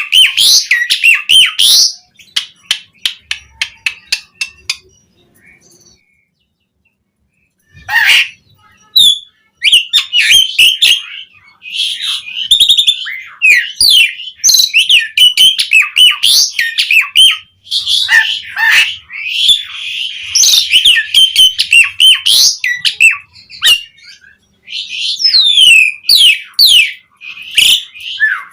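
Javan pied starling (jalak suren) singing a loud, varied song of whistles, squawks and rapid chatter. About two seconds in it gives a run of quick clicking notes, falls silent for about three seconds, then resumes full song.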